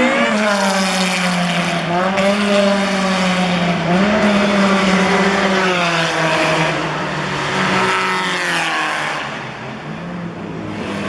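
Car engine running hard at high revs, its pitch dropping sharply just after the start as at a gear change, then climbing and sagging again over the following seconds; it gets quieter near the end.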